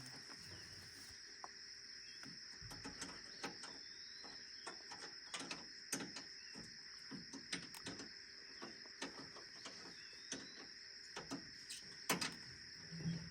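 Faint steady chirring of insects, with scattered light clicks and knocks throughout and a sharper knock near the end.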